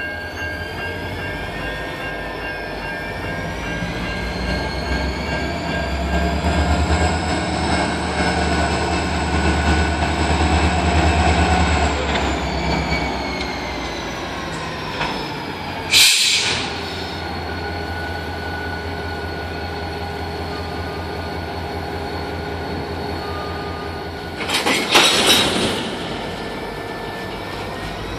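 EMD 645 sixteen-cylinder two-stroke diesels of a GP40-2 and an SD50-2 locomotive working hard: a deep steady throb under a turbocharger whine that rises in pitch, loudest about six to twelve seconds in as the units pass. Two short, loud, high screeching bursts cut in, about sixteen and twenty-five seconds in.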